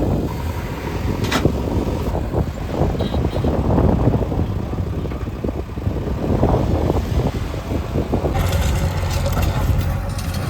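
Diesel engine of heavy construction machinery running steadily with a deep rumble, with a sharp click about a second and a half in and a hissing rattle joining from about eight seconds in.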